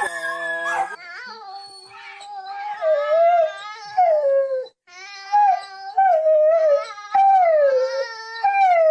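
A large black-and-tan dog howling: a string of long, wavering howls that slide down in pitch, one after another with short breaks. In the first second, a man and his dogs howl together.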